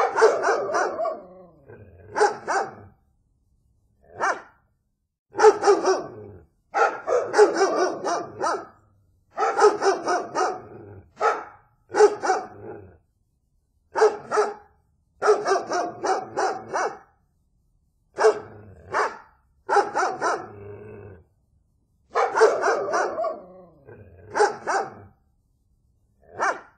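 A dog barking in short runs of a few barks, one run every second or two with brief silent gaps between.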